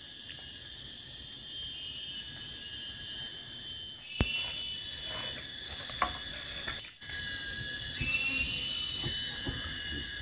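Tropical forest insects shrilling in a steady high-pitched drone, several pitches layered together, with faint scattered knocks underneath.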